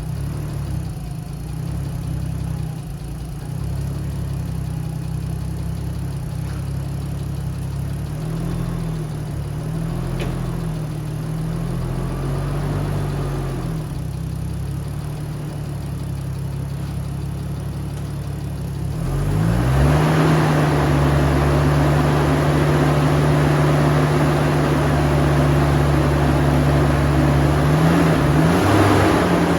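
Turbocharged Nissan RB25 straight-six running on its first start after a head gasket and head stud job. It idles with a slightly wavering pitch, then about two-thirds of the way through the engine speed rises to a higher steady idle and gets louder, with a brief dip near the end.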